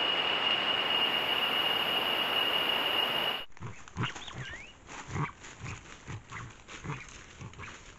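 A loud steady hiss with a high steady whine that cuts off abruptly about three and a half seconds in. It is followed by soft low thumps, about two a second, and light rustling in dry leaf litter as a large ground bird walks close by, with one short rising chirp.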